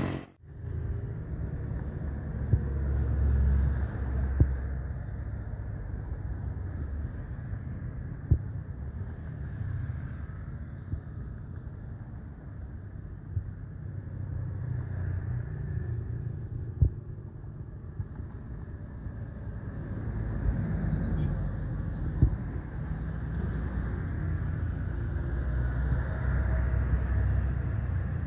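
Boeing 737-800 jet airliner's engines rumbling on landing, the low rumble swelling over the last several seconds as it touches down and rolls out. A few single sharp knocks are scattered through.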